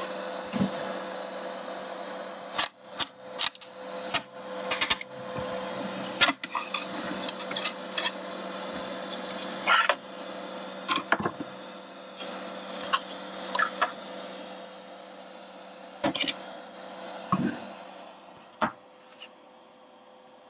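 Steady hum of a Robo R1+ 3D printer with scattered sharp clicks and knocks of a hard ABS plastic print being handled and lifted off the printer's glass bed. The hum and clicks fade near the end.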